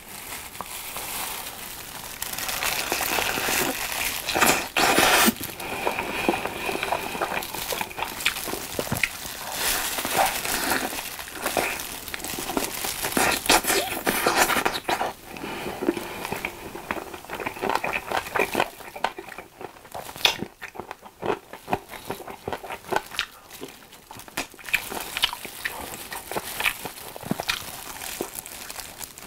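Close-up chewing and wet mouth clicks from eating sauce-glazed fried chicken drumsticks, with the crinkle of a plastic food glove handling the sticky pieces.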